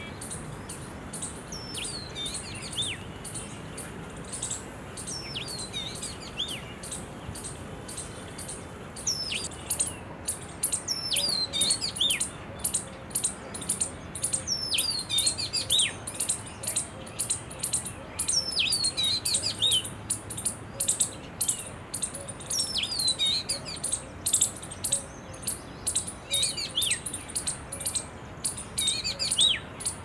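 Oriental magpie-robin singing: clear whistled phrases of sliding, mostly falling notes every few seconds, over a fast, high-pitched chirping that grows denser and louder about ten seconds in.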